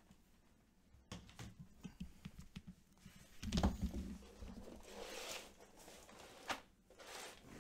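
Faint handling noises of things being moved about on a table: light clicks and rustling, with a soft thump about three and a half seconds in.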